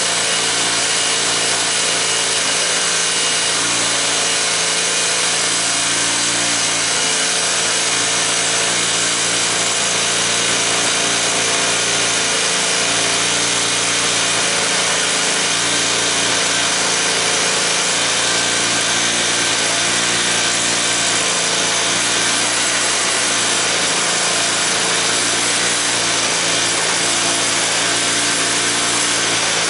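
Small off-road vehicle engine running steadily at a constant speed, with no change in pitch or level.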